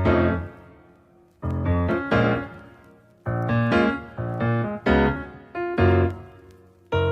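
Background music: piano chords struck about every second or so, some in quick pairs, each ringing out and fading before the next.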